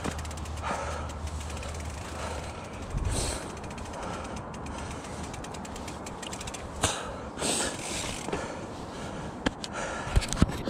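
Mountain bike's rear freehub ratchet ticking rapidly as the bike is pushed uphill on foot, with a few sharp knocks of the bike against the rocks.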